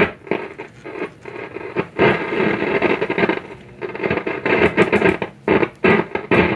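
RCA 813K tube radio's speaker giving out static with no station, crackling and surging unevenly; the owner puts the lack of reception down to dirty contacts and possibly another bad tube.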